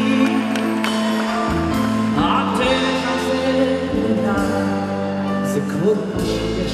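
Live concert music: a man singing a melody into a microphone over band accompaniment, with long held notes and a run of sliding vocal ornaments about two seconds in.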